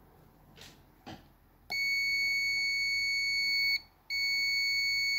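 Digital multimeter's continuity beeper sounding a steady high beep for about two seconds, stopping briefly, then sounding again, as the probes bridge an ECU connector pin and the metal housing. The beep signals continuity: that pin is ground (minus). Before it, a couple of soft scrapes from the probe.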